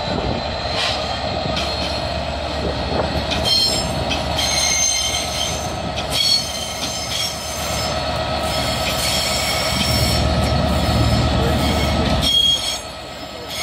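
Class 66 diesel locomotive moving slowly as a light engine, its two-stroke V12 diesel running with a steady drone while its wheels squeal on the rails, the high squeals coming and going.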